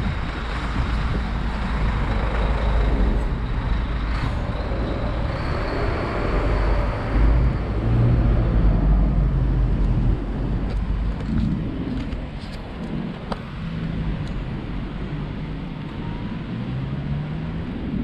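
Road traffic close by: a bus, cars and a van running past over a steady low wind rumble on the microphone of a moving bicycle. It is louder in the first half and eases off after that.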